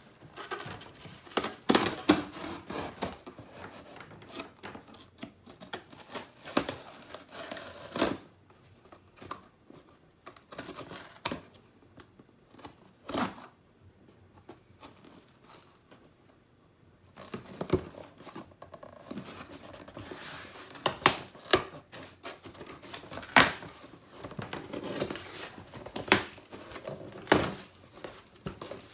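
Packaging being torn open and crinkled by hand: irregular tearing and rustling with sharp clicks, easing off to a quiet lull partway through before the handling resumes.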